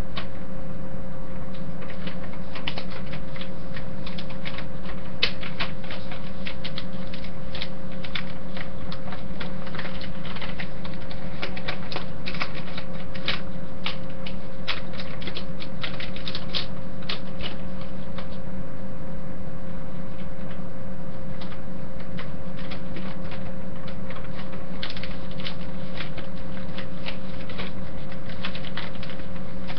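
Sheets of paper being handled and folded, with many quick rustling, crackling creases that thin out in the middle and pick up again near the end, over a steady background hum.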